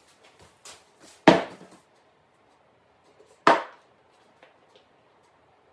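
Two sharp knocks about two seconds apart, each ringing briefly, with a few small clicks between: spray-finishing gear, a spray cup and a can of finish, being set down and handled on a plywood-topped table.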